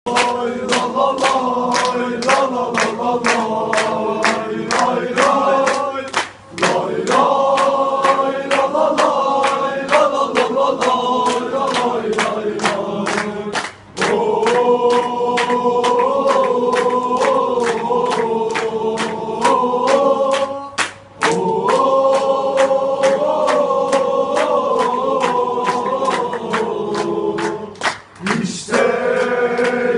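Football supporters singing a farewell chant together in unison over a steady drum beat, the melody breaking briefly between phrases.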